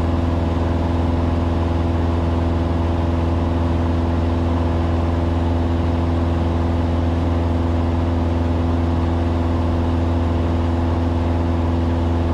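Cessna 150's four-cylinder Continental O-200 engine and propeller droning steadily in flight, holding an even pitch and level.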